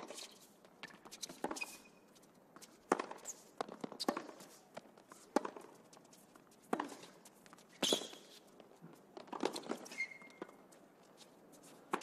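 Tennis rally on a hard court: sharp knocks of racquets striking the ball and the ball bouncing, about one a second, with a couple of short shoe squeaks.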